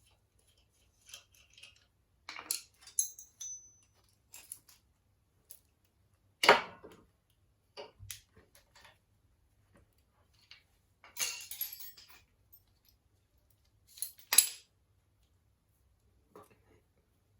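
Small metal parts and hand tools clinking and clattering on and off, with sharper knocks about six and a half and fourteen seconds in and a longer rattle around eleven seconds.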